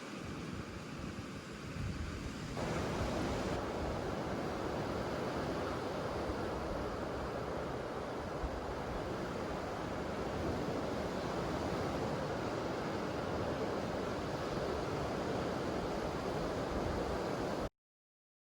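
Surf washing onto a beach, a steady rush with wind rumbling on the microphone. It grows fuller a few seconds in and cuts off abruptly near the end.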